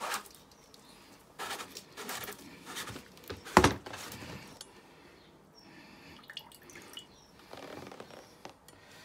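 Water dripping and splashing with irregular knocks and clatters during the power flushing of a radiator, one much louder knock about three and a half seconds in.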